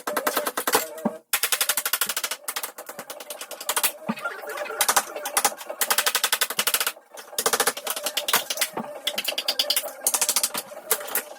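Power tool hammering rapidly, about fifteen sharp impacts a second, in runs of one to three seconds with brief pauses between them, as in chipping or drilling through kitchen tile.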